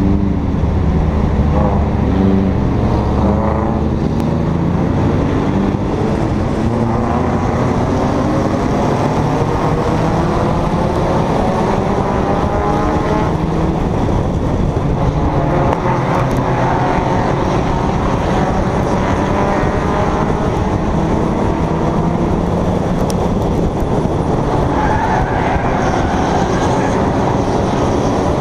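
Engines of a pack of Bonestock stock cars heard from an onboard camera, several engine notes running together and rising and falling in pitch as the throttles open and close.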